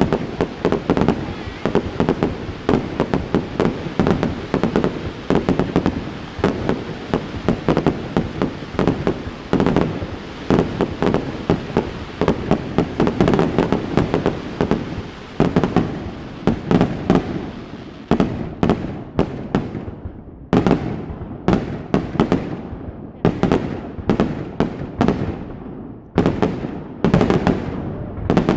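Aerial fireworks bursting in a dense, rapid barrage of bangs. About two-thirds of the way through it thins out into separate bangs a second or so apart, each with a ringing tail.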